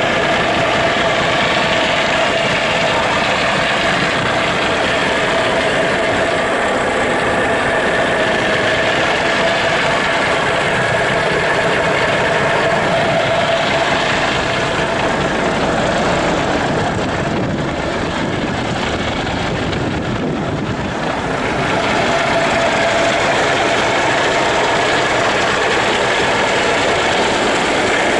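1984 Kenworth W900's diesel engine idling steadily, heard up close with the hood open.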